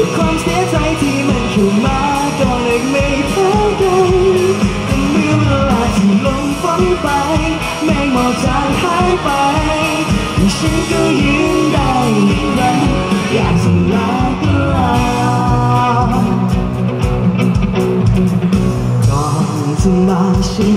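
Live band playing a pop-rock song: singing over strummed acoustic guitar and a steady beat.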